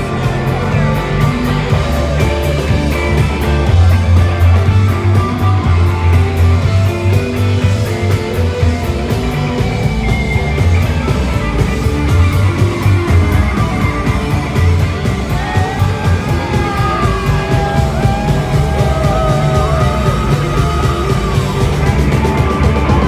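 A live rock band played loud through the venue's PA, picked up from within the crowd: heavy bass, a steady fast drum beat, and a wavering lead melody with bends in the second half.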